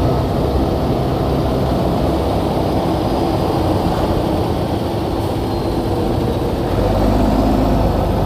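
Motorcycle riding noise in traffic, close behind a bus: steady engine and road rumble with wind on the phone microphone. The low rumble grows louder about seven seconds in.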